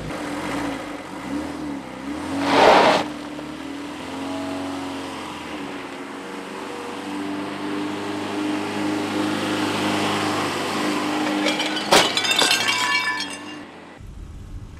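Old sedan's engine running and revving as the car pulls away and accelerates, its pitch rising in the middle, with a loud burst of noise about two and a half seconds in. A sharp knock and a short clatter come near the end.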